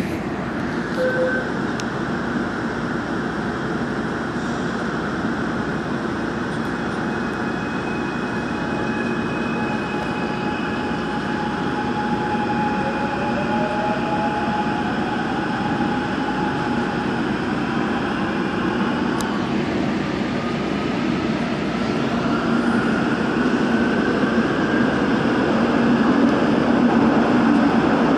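Gwangju Metro Line 1 electric train pulling out of a station and picking up speed into the tunnel. A steady running rumble carries a motor whine that rises in pitch from about halfway through, and the noise grows louder near the end.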